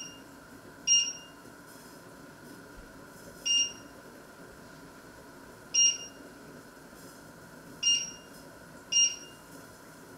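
Touch controls of a glass-ceramic electric hob beeping as they are pressed: five short, high beeps at irregular gaps of one to two and a half seconds, over a faint steady hum.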